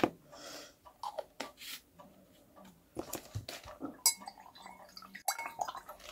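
Pots and containers clinking and knocking as they are handled while repotting a plant, with scattered sharp knocks and one ringing clink about four seconds in.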